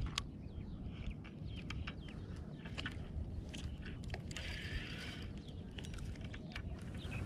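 Spinning fishing reel being handled and wound, giving small irregular clicks and ticks, with a brief hiss a little past halfway, over a steady low rumble.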